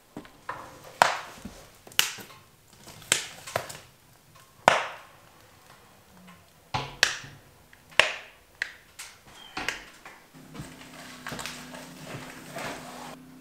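A series of sharp, hard knocks, about one a second. From about ten seconds in, water starts running from a tap with a low steady hum under it.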